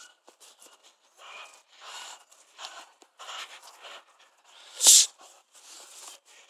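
A young dog gripping and tugging a jute bite pillow in its first bite session, heard as a string of short, rough, noisy bursts about once or twice a second. One much louder, sharp hissing burst comes about five seconds in.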